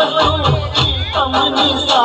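Dandiya folk-dance music: a singing voice over rhythmic percussion with a recurring low drum beat.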